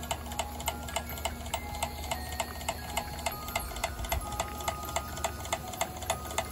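Model Worthington steam pump running on live steam, clicking steadily at about four strokes a second as it pumps feed water into the boiler.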